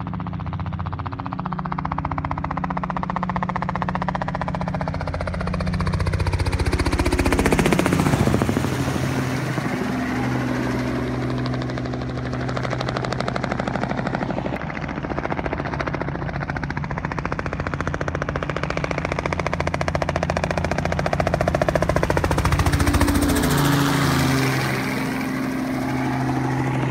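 Helicopters flying low overhead, their rotors making a fast, steady chop over a steady hum. The sound swells as one passes overhead about eight seconds in, and again near the end.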